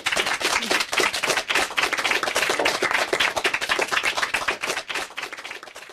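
A group of people applauding, a dense patter of many claps that dies away near the end.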